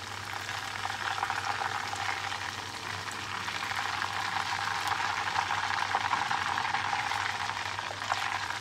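Batter-coated shrimp deep-frying in hot oil in a wok: a steady, dense crackling sizzle.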